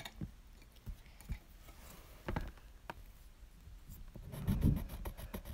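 Pencil colouring on a paper card: faint scratching strokes with a few light taps from handling, then a run of quick scribbling strokes about four and a half seconds in.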